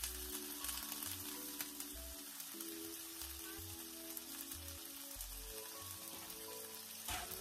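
Tofu frying in a pan on a gas stove, a steady sizzle, under background music with a slow melody and bass. A short knock near the end.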